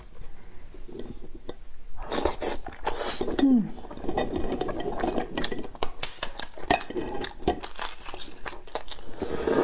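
Shell of a boiled half-developed egg (maodan) crackling and clicking as fingers crack and peel it, with eggs knocking on a ceramic plate.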